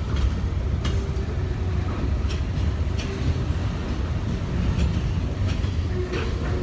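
Norfolk Southern freight train's cars rolling on the track: a steady low rumble with scattered sharp clicks and clanks.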